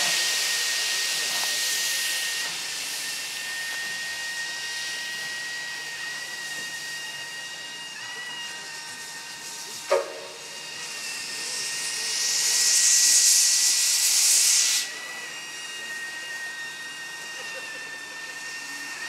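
R class Hudson steam locomotive standing in steam: a steady high whistling tone runs under hissing steam. A sharp short pop comes about halfway through, then a loud rush of steam builds and cuts off suddenly a few seconds later.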